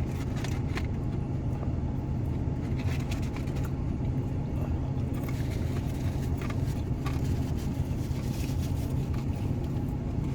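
Steady low hum of a car running at idle, heard from inside the cabin, with faint light clicks and rustles of food being handled and eaten.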